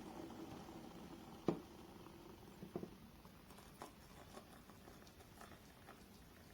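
Just-boiled stainless-steel electric kettle settling after switching itself off: the last of the water's noise dies away, then a few faint, scattered clicks and ticks, the clearest about one and a half seconds in.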